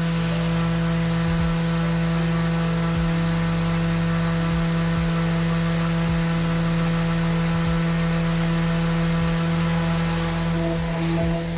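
Electric power sander running steadily, with a constant motor hum, while sanding a wooden skateboard deck; the low end shifts every second or two as the board is worked against it.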